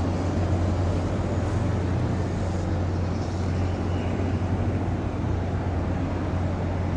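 A steady low mechanical hum under a wash of outdoor background noise.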